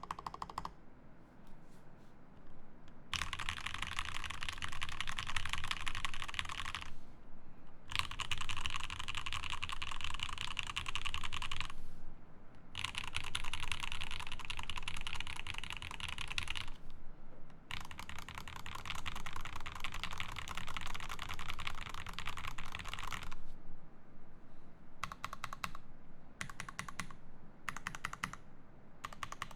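Typing on an Alicia mechanical keyboard with factory-lubed Ultramarine switches, an acrylic plate and GMK keycaps. The keystrokes come in four fast runs of a few seconds each, separated by short pauses. Near the end they thin out to slower, separate key presses.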